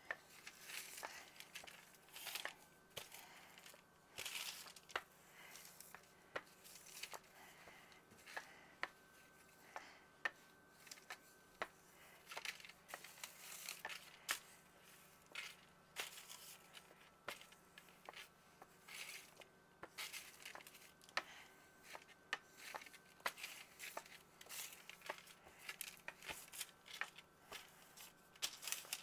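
Rolling pin working biscuit dough on a floured counter: faint, repeated rolling and rustling strokes with frequent light clicks and knocks.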